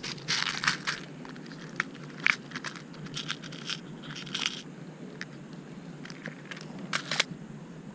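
Hands handling fishing tackle: a foam case and a clear plastic compartment box of small metal tackle being opened and picked through, giving quick plastic clicks, rattles and rustles. These come thickly in the first half, then thin out to a few single clicks.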